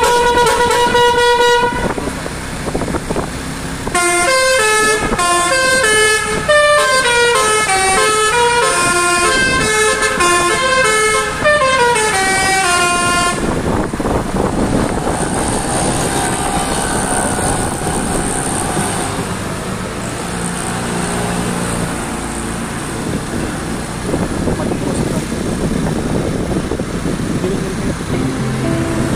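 Basuri telolet car horn: one held chord at first, then about 4 s in a quick tune of stepping notes running up and down for around nine seconds. After that the horn stops and a steady noisy rumble carries on, with a faint held tone partway through.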